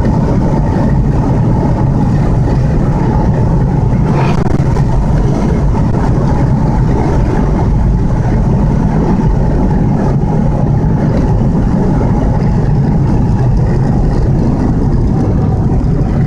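Steady engine and tyre noise heard from inside a car cruising along an asphalt highway.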